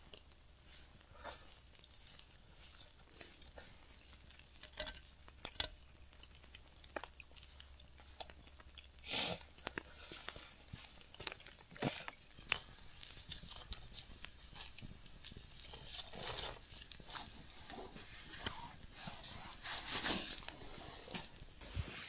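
Knife blade scraping and tapping on a flat cooking stone as pieces of fish are pushed and turned, with faint sizzling and scattered crackles from the fire beneath.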